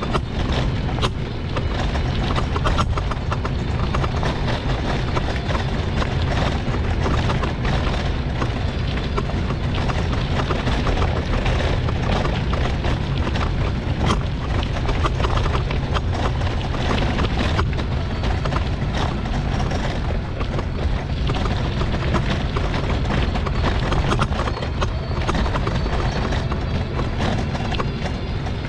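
Mobility scooter rattling and knocking continuously as it rides over an uneven path, over a steady low rumble.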